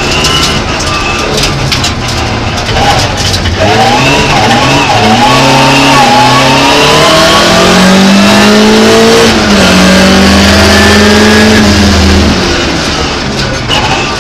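Opel Ascona rally car's engine heard from inside the cabin, accelerating hard with its note climbing and dropping back through several gear changes. It then holds steady at high revs before lifting off near the end, over constant tyre and road noise.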